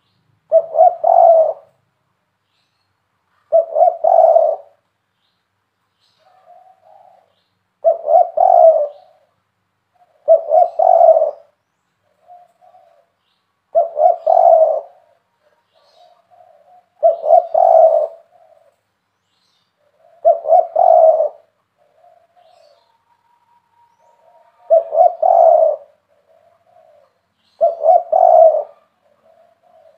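Spotted dove cooing in a repeated three-note phrase, one about every three seconds, nine in all, with faint shorter notes between the phrases.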